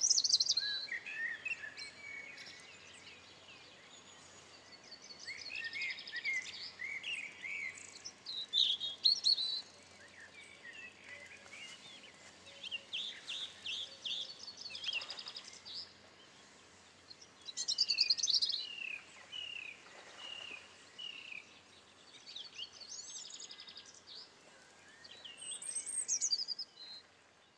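Songbirds singing: phrases of quick high chirps, trills and warbles that come and go every few seconds, over a faint outdoor background.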